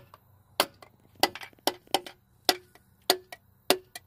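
Butt of a hammer handle tapping a piston down through a ring compressor into a cylinder bore of an International 345 V8 block: about nine sharp taps, roughly two a second, several with a short metallic ring.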